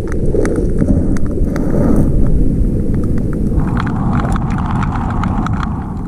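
Lipless crankbait rattling underwater, its irregular sharp clicks heard through a loud low rumble of water noise.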